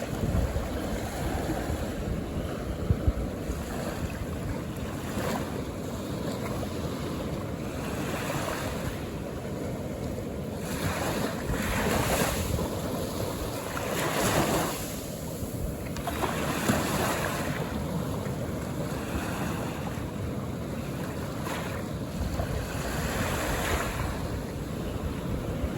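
Calm ocean waves breaking and washing up on a beach, the hiss of surf swelling and fading in several surges, over a low rumble.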